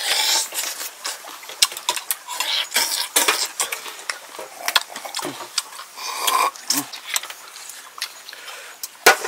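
Cooked river snails being sucked out of their shells: slurps, a long one right at the start, mixed with frequent sharp clicks of snail shells.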